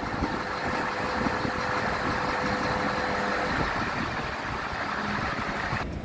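Scania R tractor unit's diesel engine running while its hydraulic loader crane moves the boom, with a steady tone over the engine noise for the first few seconds. The sound changes abruptly near the end.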